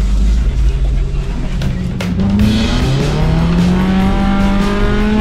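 Small off-road 4x4's engine heard from inside the cabin, pulling a steady drone at first and then revving up from about halfway through, its pitch climbing and holding. Music plays underneath.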